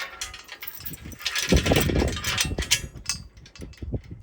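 Chains clinking and rattling against metal as they are hooked between a harrow and a tractor blade, with a louder clatter about a second and a half in.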